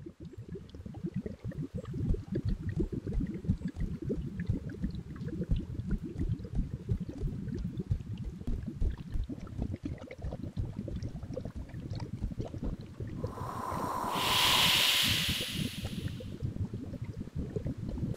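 Thick, low bubbling of a boiling cauldron brew, a steady run of irregular pops. About thirteen seconds in, a hiss swells up, lasts around three seconds and dies away.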